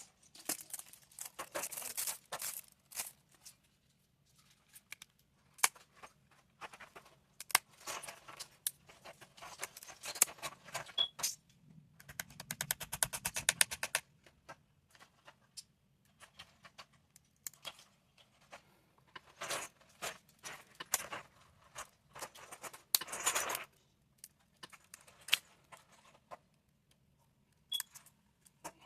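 Hand tools scraping and clicking against a phone's cracked back glass in irregular spurts, with a fast run of even ticks for about two seconds midway, over a faint steady hum.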